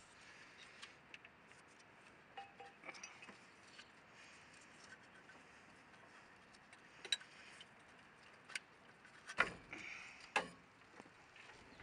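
Faint metallic clicks and taps of timing-belt parts and tools being handled at the front of the engine as the tensioner and belt come off. Four sharper clicks come in the second half.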